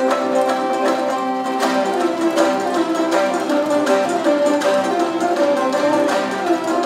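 Traditional Kazakh folk ensemble playing: plucked strings, a long-necked lute and a table zither among them, in a continuous run of notes over held tones.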